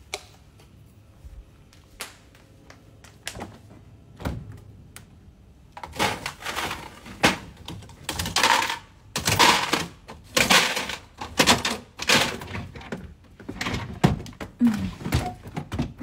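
A run of knocks and rustles, roughly one a second, from about six seconds in, after a few scattered clicks; the noise of a phone being carried and handled while its holder moves about.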